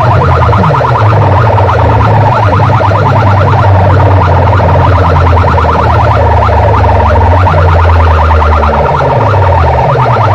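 Large DJ sound-box systems played at very high volume in a sound competition: a fast string of short, rising, siren-like electronic chirps repeating several times a second over heavy, steady bass.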